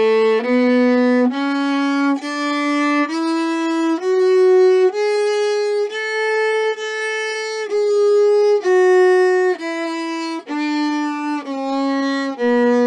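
Viola playing a one-octave A major scale, bowed up and back down, one bow stroke per note of about a second each, with the top A held a little longer in the middle.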